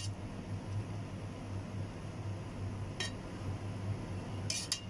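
Wire skimmer spreading parboiled rice in a cooking pot, clinking lightly against the pot once about three seconds in and twice near the end, over a steady low hum. The rice is being layered over the chicken for dum biryani.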